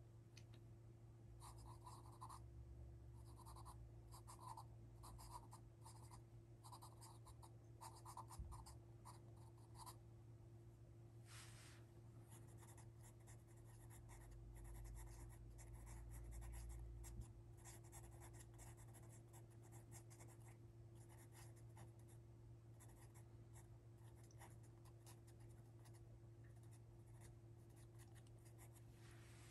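Pencil scratching faintly on drawing paper in many short strokes, over a steady low hum.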